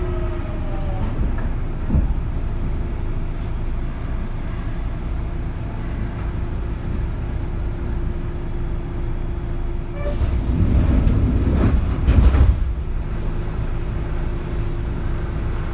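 Interior running sound of a Kintetsu 3200 series motor car with early Mitsubishi GTO VVVF inverter control. The inverter's falling tones fade out about a second in, leaving a steady rumble and hum, and a louder rushing surge comes about ten seconds in.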